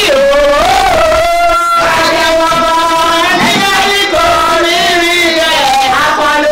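Singing with long held notes that slide up and down in pitch.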